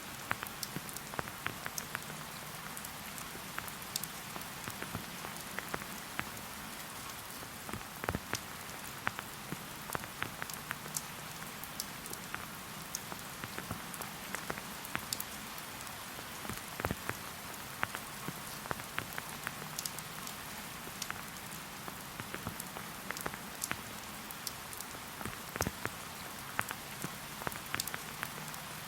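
Steady rain falling, with many single drops ticking sharply close by at irregular moments.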